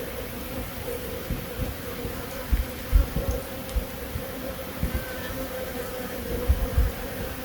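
Honey bees buzzing in a steady hum. Short low thumps come and go, the loudest about three seconds in and another pair near the end.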